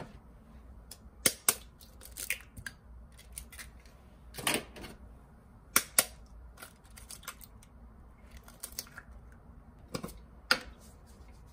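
A series of irregular, sharp clicks and knocks, with a short rustling or scraping sound in the middle.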